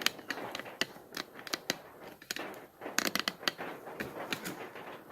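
Plastic Rubik's cube being twisted by hand: an irregular run of sharp clicks and clacks as the layers turn, busiest about three seconds in.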